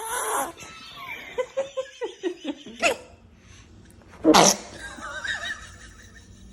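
A baby sneezing: one sharp, loud sneeze about four seconds in, with a smaller sharp burst just before. Short bursts of laughter fill the first couple of seconds.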